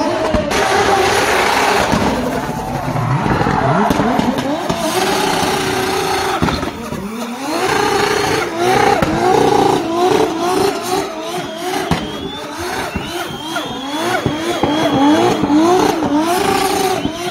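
2JZ-swapped BMW E46 drift car's engine revving hard, its pitch climbing and dropping again and again in quick succession, over the noise of sliding tyres.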